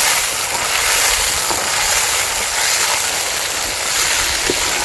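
Turkey berries sizzling as they fry in hot oil in a pan: a steady, even hiss.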